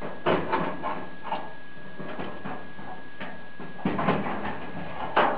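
Clecos being fitted into the drilled holes of an aluminum aircraft skin with Cleco pliers: a string of irregular metallic clicks and knocks, the loudest near the end. A faint steady high tone runs underneath.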